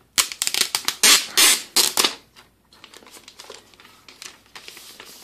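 Thin plastic protective wrap handled and pulled off by hand, rustling and crackling: a loud run of crinkles over the first two seconds, then quieter scattered crinkling.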